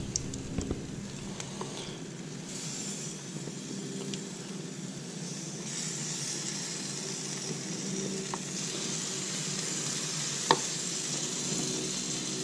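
Amberjack steaks sizzling on a hot grill grate as marinade is brushed onto them. The hiss grows stronger a few seconds in, with a few light clicks of the basting brush.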